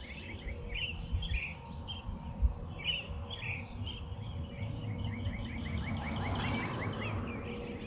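Small songbirds chirping, with a rapid trill that comes and goes, over a low outdoor rumble. A soft rushing noise swells and fades about six to seven seconds in.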